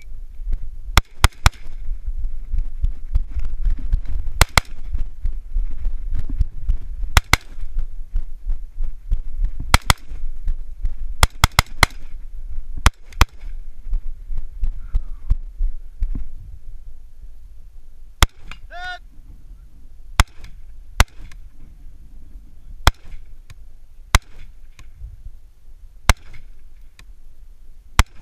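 AR-15-style semi-automatic rifle firing on the clock: quick strings of shots over the first 14 s, then single shots every second or two. A low rumble of the shooter moving, picked up on a body-worn camera, lasts the first 16 s, and a brief pitched call is heard about 19 s in.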